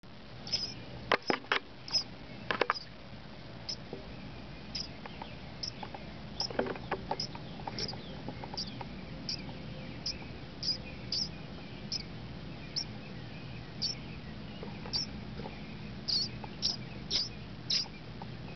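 Nestling robin giving short, high begging peeps about once a second as it is hand-fed from tweezers. A few sharp clicks and knocks come in the first few seconds and again about six to seven seconds in.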